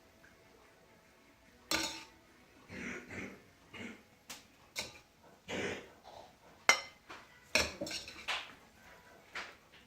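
Fried rice being scooped from the pan onto a plate: a utensil scraping and clinking against the pan and plate in an irregular string of short scrapes and knocks, the sharpest about seven seconds in.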